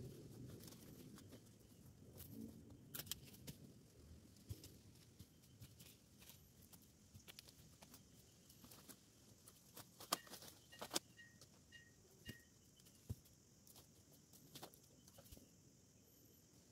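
Faint rustling and scattered sharp clicks and snaps of someone working through dense dry brush and leaves. About ten seconds in, five short high chirps follow one another quickly.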